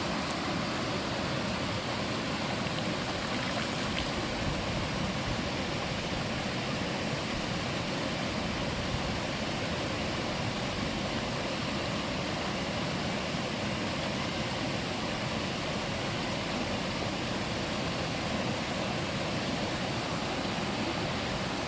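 Mountain stream water rushing over rocks, a steady full splashing without pause.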